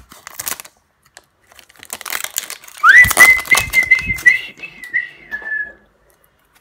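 Foil booster-pack wrapper crinkling and tearing as it is opened and the cards are drawn out, with a person whistling one note that slides up and holds for about three seconds.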